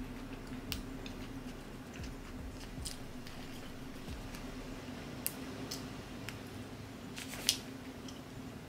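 Holographic vinyl being weeded with a hook tool: the thin film crackles and ticks in scattered bursts as it is peeled back from its backing sheet, with the sharpest crackle about seven and a half seconds in. A steady low hum runs underneath.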